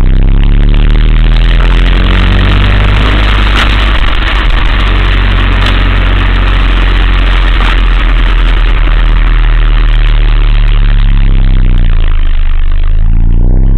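Car in motion recorded up close, with its engine hum and road noise loud and steady. The noise swells about a second in and eases off near the end, with a few sharp clicks in between. The recording was made to catch an abnormal noise from newly installed aftermarket coilover suspension.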